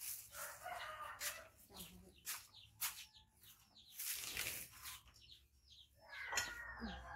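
Chickens clucking, with short chirping calls, over the short sharp crinkles of a plastic bag being handled. Near the end comes a longer, pitched call that runs on past it.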